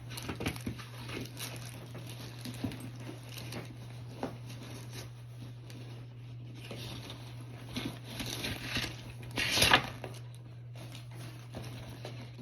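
Packaging rustling and crinkling as a new handbag is unwrapped, with scattered light taps and handling noises. The loudest rustle comes about nine and a half seconds in.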